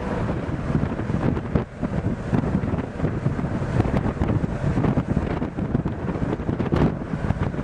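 Wind buffeting the microphone on a moving ship's open stern deck: a loud, ragged rush that swells and drops in quick gusts, with the churning wake below it.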